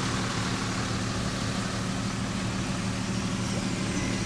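Steady, even-pitched hum of an idling engine.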